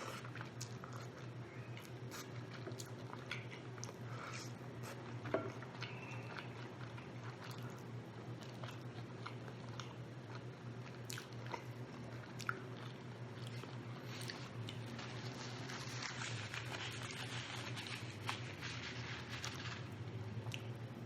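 Close-up chewing and biting of rotisserie chicken: wet mouth sounds with scattered crisp clicks, growing into a denser crackling stretch about two-thirds of the way through. A steady low hum runs underneath.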